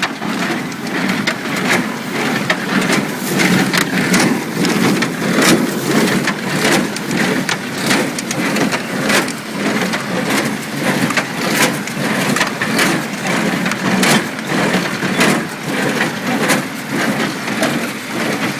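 International Harvester 47 square baler running in hay: a continuous rattling clatter punctuated by regular sharp knocks as the plunger packs hay into the bale chamber.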